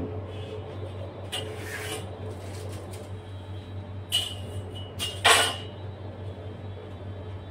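A few short rustling and scraping handling noises, the loudest about five and a half seconds in, over a steady low hum.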